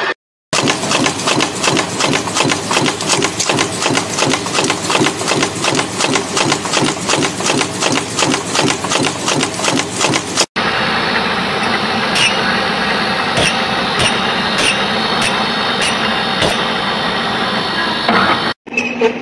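A mechanical power press stamping sheet-metal parts in a die, striking in fast, even strokes, several a second. About ten seconds in, after a cut, a different metalworking machine runs steadily with a sharp click repeating about every half second or so.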